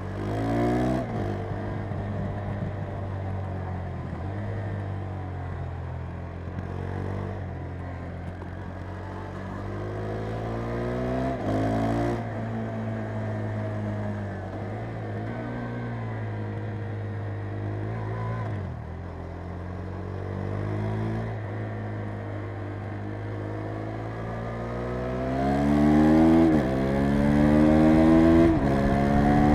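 KTM 390 Adventure's single-cylinder engine being ridden hard: the revs climb and drop again and again as the rider accelerates, shifts gear and rolls off for bends. It is loudest near the end, where it revs up steeply twice.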